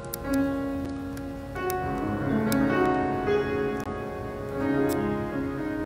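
Slow keyboard music in a piano style: held notes and chords, with a new note struck about every half second to one second.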